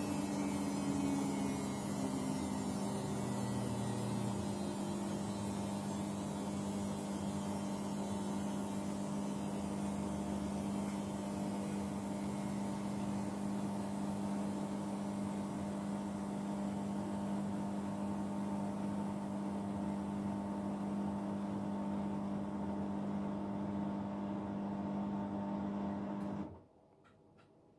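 Samsung Ecobubble WW80J5355MW washing machine on a 1200 rpm spin-only cycle, its drum motor winding down: a whine falls in pitch over the first few seconds, then a steady hum continues until it cuts off abruptly about a second before the end.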